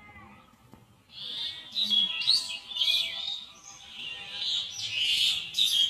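A flock of small birds chirping and twittering, a dense chatter of quick, high-pitched notes and short rising whistles that starts about a second in.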